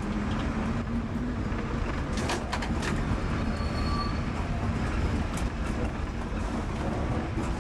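Lisbon electric tram running along street track, heard from on board: a steady low rumble of the car and its wheels on the rails, with a few short sharp clicks about two to three seconds in and again a little after five seconds.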